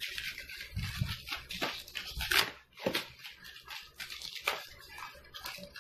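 Polystyrene foam packing pieces being pulled off a cardboard box and handled, with plastic bubble wrap rustling underneath: a string of short, irregular scrapes and crackles.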